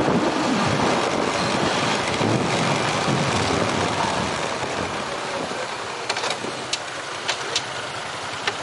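Motorbike riding noise of engine, tyres and passing air, easing off as the bike slows to a stop at an intersection, with a few brief sharp clicks in the last few seconds.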